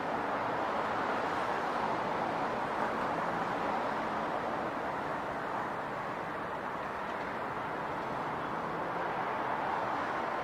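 Steady city traffic noise: a constant wash of vehicle sound with a faint low engine hum beneath it.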